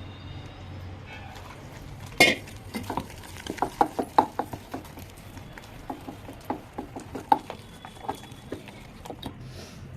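A spoon stirring and clinking against a bowl, mixing flour with salt and soda for bhajiya batter, in irregular sharp taps several times a second after one louder knock about two seconds in.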